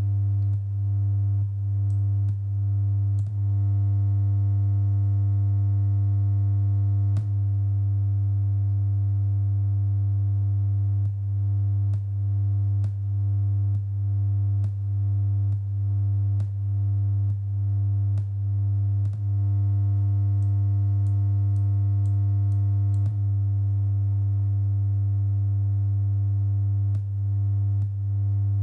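Electronic synthesizer drone: a steady low hum-like tone with overtones, broken by regular clicking pulses about one every 0.8 seconds that pause for several seconds twice.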